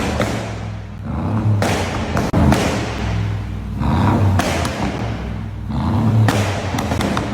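Mercedes-Benz G550's M176 twin-turbo V8, tuned for crackles, revved three times in a row. Each time the throttle closes, the exhaust pops and crackles on the overrun.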